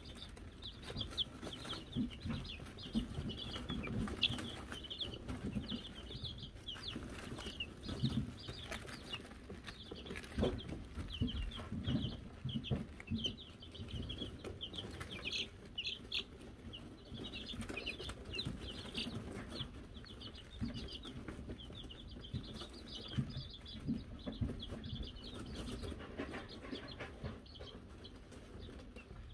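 A brood of Wyandotte chicks peeping continuously, with many short, high peeps overlapping, over soft scuffling and light thumps low down as they move about in the wood-shaving bedding.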